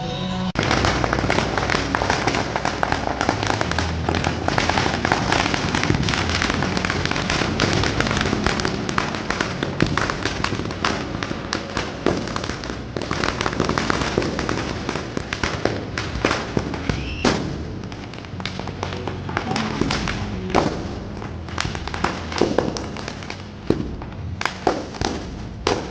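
Many small firecrackers going off in rapid succession, a dense continuous crackle of pops. After about eighteen seconds it thins out into scattered, separate bangs.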